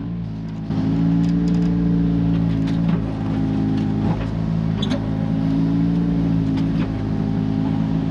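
Komatsu mini excavator's diesel engine running under hydraulic load as the bucket works, getting louder about a second in and holding steady, with a few light knocks.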